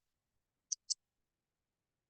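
Two quick, light clicks about a fifth of a second apart, like a computer mouse being clicked, in an otherwise quiet pause.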